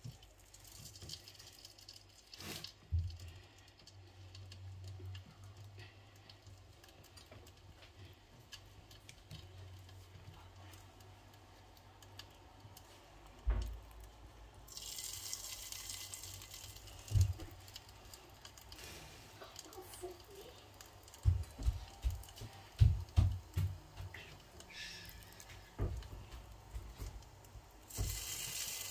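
Dollops of puff puff batter dropped by hand into a pot of hot oil, the oil sizzling as they go in: a hiss starts about halfway through, fades after a few seconds and comes back near the end. Scattered low thumps come along with it.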